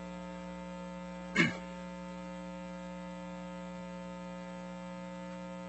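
Steady electrical mains hum in the microphone and sound system, with one short cough about a second and a half in.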